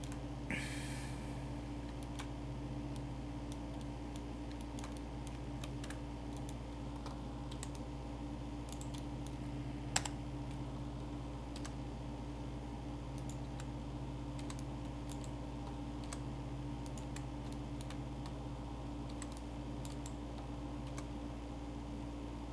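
Irregular clicks of a computer keyboard and mouse, with one sharper click about ten seconds in, over a steady low electrical hum.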